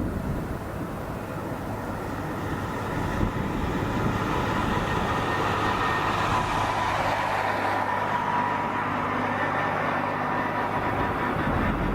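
Boeing 787-9 jet engines running: a broad rush with a steady whine, growing louder about three to four seconds in.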